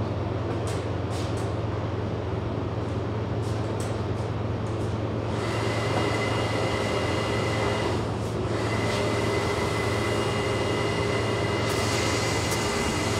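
A steady low mechanical drone, with a thin high whistle joining it about five seconds in.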